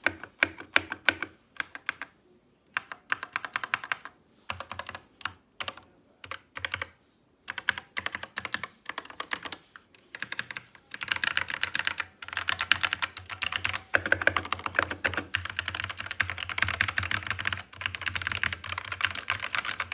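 Typing on a Hator Rockfall TKL mechanical keyboard with Kailh Black Optical switches: key clacks in short bursts with pauses at first, then fast continuous typing from about halfway through.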